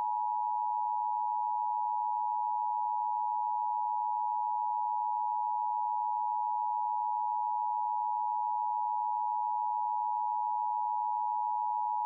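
Emergency Alert System attention tone ahead of a tornado warning: a single steady pitch near 1 kHz, held long and unbroken.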